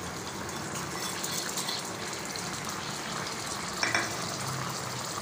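Ketchup and ginger-garlic sauce frying in oil in a non-stick wok, a steady sizzle, with a brief louder noise about four seconds in.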